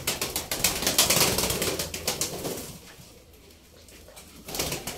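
Domestic pigeons flapping their wings in a rapid flurry of flutters lasting about two and a half seconds, then quiet, then another short flurry near the end.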